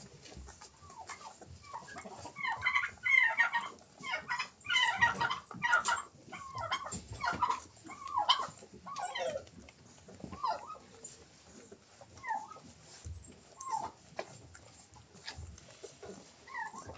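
A dog whining and yelping in a series of short, high calls, some sliding down in pitch, busiest in the first half.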